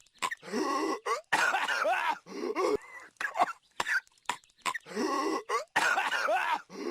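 A cartoon character's voice coughing hard in fits: harsh hacking coughs mixed with strained, groaning vocal sounds, broken by short pauses. The same stretch of coughing seems to repeat every four to five seconds.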